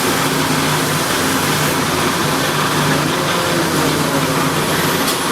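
Two metal lathes running together, one driving an old cone-head lathe through belts and a clutched shaft: a steady machine hum and whir with low steady tones.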